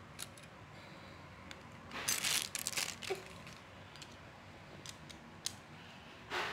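Plastic packaging crinkling in two short bursts, with a few light clicks of small plastic toy parts being handled in between.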